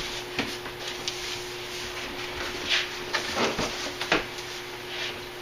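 Cardboard shipping box flaps being folded open and handled, giving a few scattered scrapes and knocks of cardboard, with a faint steady hum underneath.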